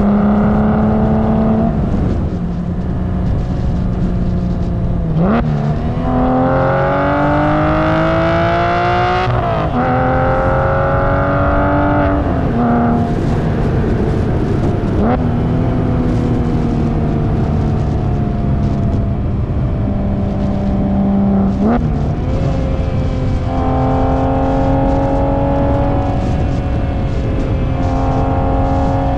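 Porsche 996 911's 3.4-litre M96 flat-six running through a muffler-delete exhaust on the road. It accelerates in several pulls, with the pitch climbing and then dropping sharply at each gear change, and then runs at fairly steady revs. The engine has early bore scoring, which the owner says you can't really tell by ear.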